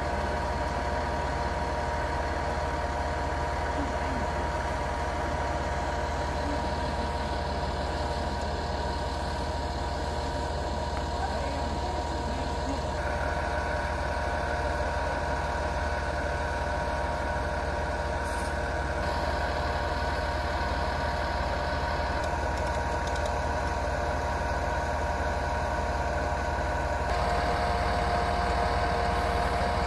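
Truck engine idling steadily, a little louder near the end.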